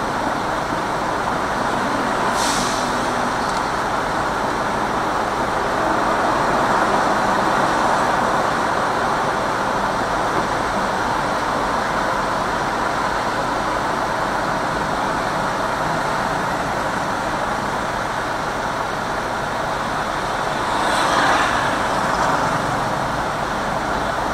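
Steady road and traffic noise from a car driving through city traffic, heard from inside the car. Two brief hisses stand out, about two seconds in and again near the end.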